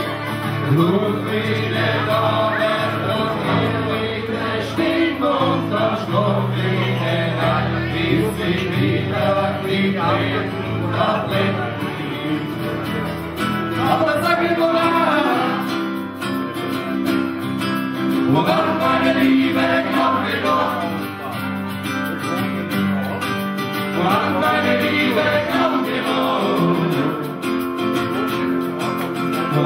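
Live acoustic performance: two acoustic guitars strummed and picked together while a man sings.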